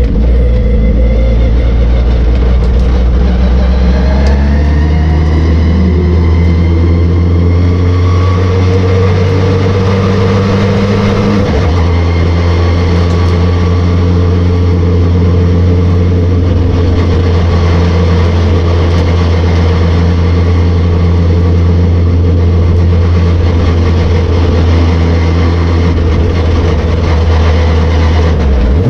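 Racing car engine under hard throttle on a circuit, heard from onboard. The revs climb over the first several seconds and then hold high and steady, with a brief change in pitch about twelve seconds in.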